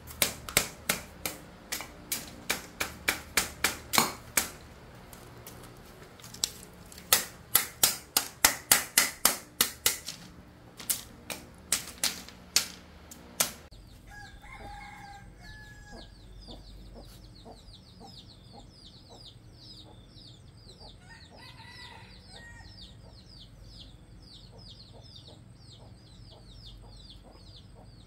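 Quick runs of sharp knife chops on a cutting board for about the first half, then chickens clucking twice over a high, rapidly repeating chirp.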